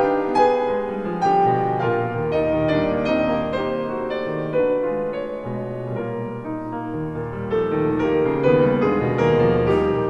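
Instrumental background music with piano, single notes struck one after another over held lower notes.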